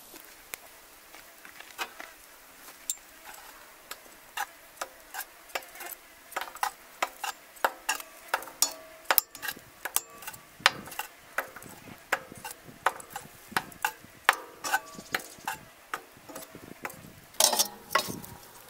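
Metal tongs clicking and scraping against the inside of a cast-iron camp oven as spent charcoal briquettes are picked out and the ash raked over during a coal change. The taps come quick and irregular, sparse at first and busier from about a third of the way in, with a louder clatter near the end.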